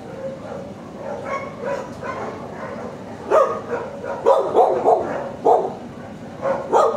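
Shelter dogs barking in the kennels: fainter barks at first, then a run of loud, sharp barks from about three seconds in.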